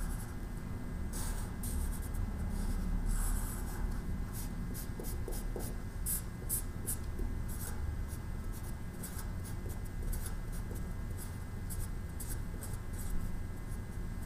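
Felt-tip Sharpie marker drawing on paper: many short strokes scratching across the sheet, coming quicker and closer together in the middle as small details are drawn.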